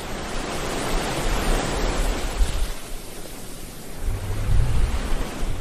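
Ocean surf washing in: a steady rushing hiss of breaking waves, surging deeper about two seconds in and again near the end.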